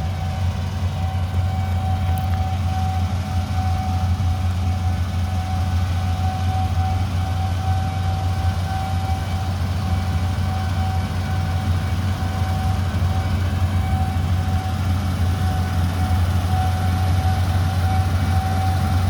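Heavy diesel farm machinery running steadily: a deep, even engine hum with a thin steady whine above it, unchanging throughout.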